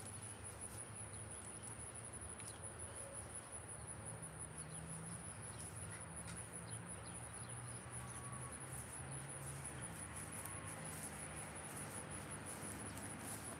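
Insects trilling steadily in a high, fast-pulsing tone, faint against a quiet outdoor background.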